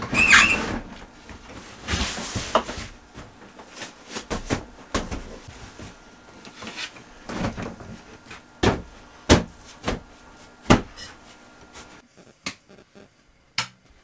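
A drawer or cabinet sliding shut with a brief squeak, then a series of sharp knocks and clicks as cupboard doors, dishes and wooden fittings are handled in a small wood-lined room.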